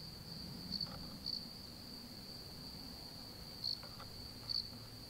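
Crickets trilling at night: one steady, high continuous note, faint, with a few brief louder chirps.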